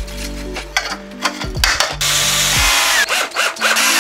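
Ryobi cordless drill driving screws into 3D-printed plastic parts. The motor runs loudest in the second half, and its whine falls in pitch as it slows near the end. Background music plays underneath.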